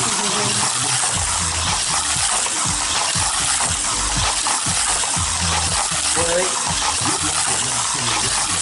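Small battery-powered remote-control car whirring and rattling as it runs through a clear plastic tube track, a steady noisy clatter.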